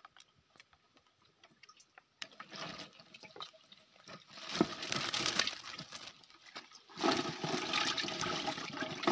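Water and fish splashing and sloshing as the catch is shaken out of a net fish trap into a cut-open plastic jerry can. A few light clicks at first, then the splashing starts about two seconds in and comes in two louder spells in the second half.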